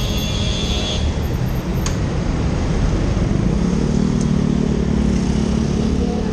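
Motorcycle engine running at low speed in slow city traffic, its note steadying and rising slightly about halfway through. A brief high-pitched tone sounds in the first second.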